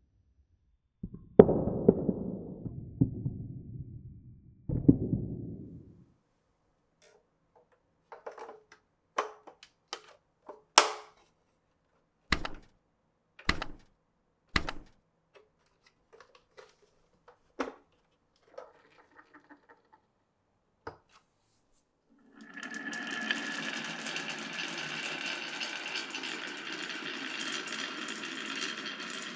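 Glass marbles rolling and clattering through a wooden marble run: two rumbling rolls down wooden track in the first six seconds, then a string of sharp clicks and knocks as marbles drop and strike the pieces. About 22 seconds in, a steady rushing noise starts and runs on.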